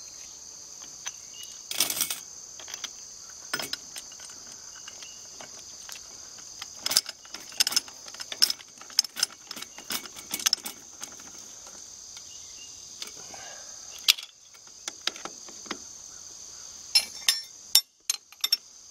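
Metal hand tools clinking and knocking against the wellhead fittings in scattered sharp clicks while an adapter is screwed onto the pump's sucker rod. A steady chorus of insects runs underneath.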